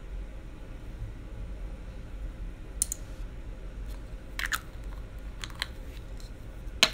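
A few scattered light clicks and taps of small makeup items being handled on a table: one about three seconds in, a couple more over the next few seconds, and a sharper click near the end, over a low steady hum.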